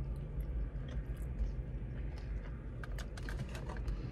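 Close-up chewing of a chicken wing, with irregular wet clicks and smacks from the mouth and fingers, over a low steady hum.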